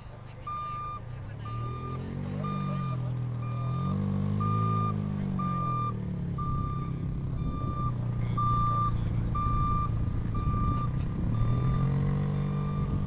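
Regular electronic warning beeps, about one and a half a second, over the engine of an autonomous-converted Lotus sports car revving up and falling back twice as it drives.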